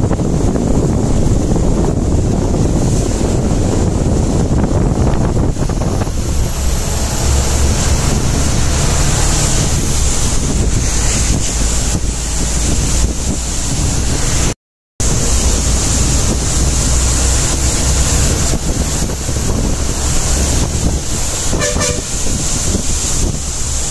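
Wind rushing over a microphone held out of a moving bus's window, with a steady low rumble from the bus. The sound drops out for a moment midway, and a short vehicle horn toot sounds near the end.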